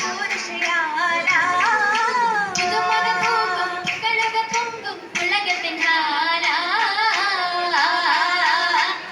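Oppana song: a group of girls' voices singing a wavering melody in unison, with rhythmic hand clapping throughout.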